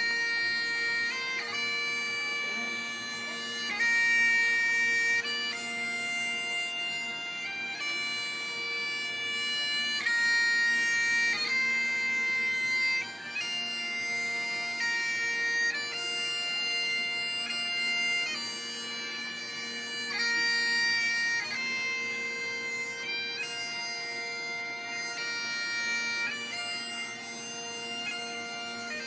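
Scottish Highland bagpipes playing a tune: the drones hold one steady note under the chanter's melody, which steps from note to note every second or two.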